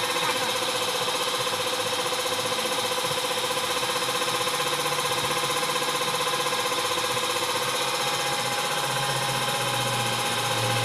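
A motor running steadily: a continuous mechanical drone that holds one pitch throughout.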